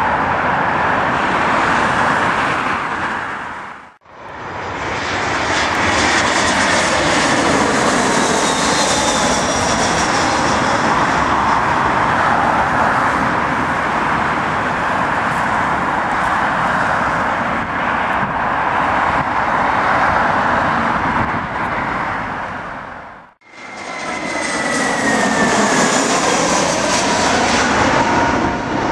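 Jet airliners' turbofan engines running loud as the aircraft pass low on final approach and landing, including a KLM Boeing 737-400. The roar carries a faint engine whine. It cuts out briefly about four seconds in and again near the end, after which a whine falls in pitch as another jet passes.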